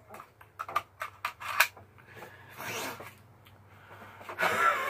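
A toy pistol being handled while its bullets are changed: a quick string of light clicks, followed by rubbing and rattling.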